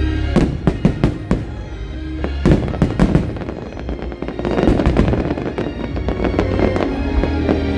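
Aerial fireworks bursting overhead: several sharp bangs in quick succession in the first second and a half, another cluster about two and a half seconds in, and then a spell of dense crackling around the middle. Show music plays steadily underneath.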